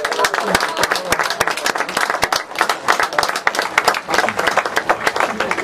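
Spectators applauding, many hands clapping quickly, just after a goal.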